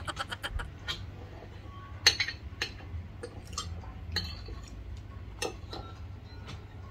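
Metal spoons and forks clinking and scraping against plates during a meal: scattered separate clicks, the sharpest about two seconds in.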